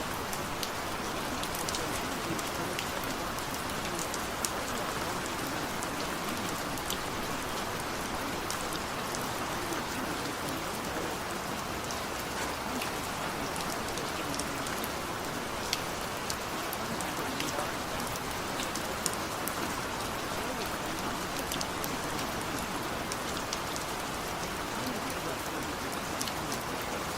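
Steady rain falling, an even hiss sprinkled with sharp drop ticks.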